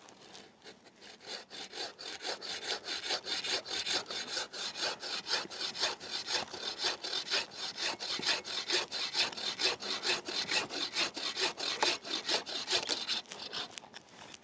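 Boreal 21 aluminium folding bow saw, fitted with a fine-toothed blade, cutting through a fallen willow log in rapid, even back-and-forth strokes. The strokes build up over the first couple of seconds and stop shortly before the end, as the log is cut through.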